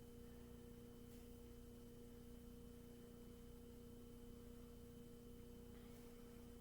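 Near silence with a faint, steady hum of a few pure tones and a couple of very faint clicks.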